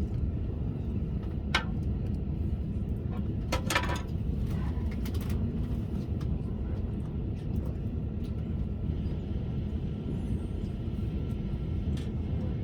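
Steady low rumble of a passenger train running, heard from inside the carriage, with a few sharp clicks or knocks, the loudest about a third of the way in.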